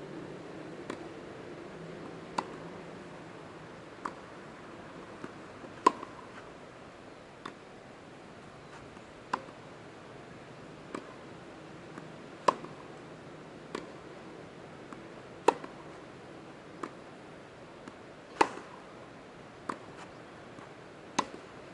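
Tennis ball struck back and forth with rackets in a rally, a sharp pop about every one and a half seconds, the louder hits alternating with fainter ones from the far end of the court.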